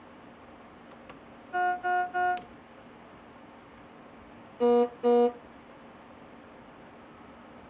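Philips IntelliVue patient monitor sounding its alarm tones: a quick burst of three short beeps, then about two seconds later two lower, louder beeps.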